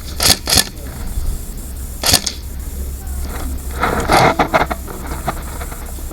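Several sharp clicks and knocks: single ones about a quarter second, half a second and two seconds in, then a quicker cluster around four seconds in, over a steady low rumble.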